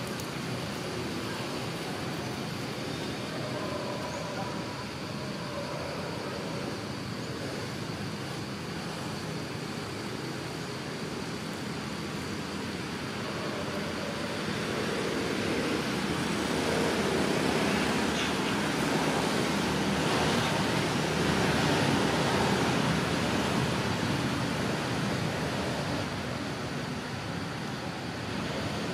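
Steady rushing outdoor background noise that swells for several seconds about halfway through, then eases off near the end.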